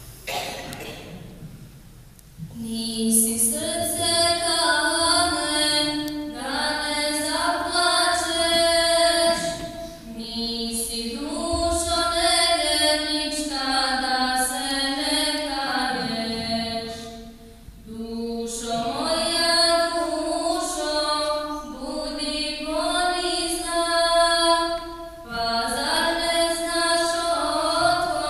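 A madrasa choir singing a Bosnian ilahija (Islamic devotional hymn) a cappella. The singing starts about two seconds in, with a brief pause midway.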